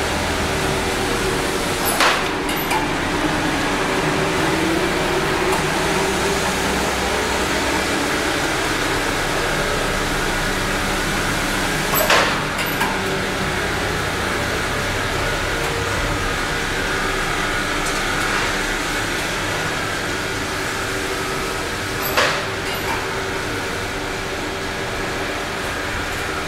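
Steady running noise of machinery in a wood-panel factory, with a sharp clack, then a lighter one, about every ten seconds, three times in all.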